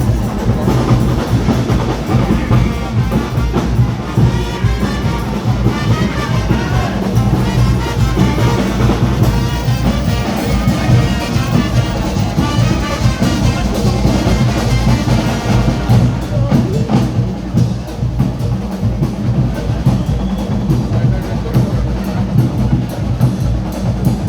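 Carnival band music: brass and drums playing over a steady, driving beat, loud and continuous, with the brass thinning out about two-thirds of the way through.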